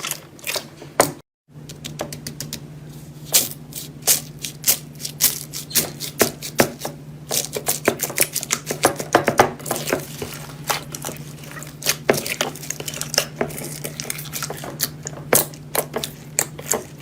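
Slime being squeezed and pressed by hand, giving a dense, irregular run of sharp clicks and pops. A brief cut just over a second in, then a steady low hum underneath.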